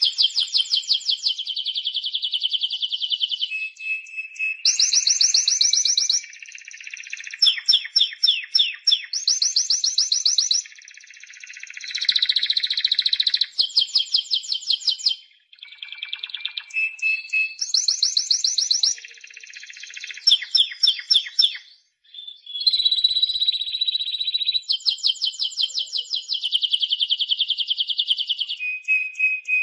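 Spanish Timbrado canary singing a continuous song of rapid trills and rolls. Each phrase of quickly repeated notes lasts a second or two and jumps between higher and lower pitch, with two brief breaks midway.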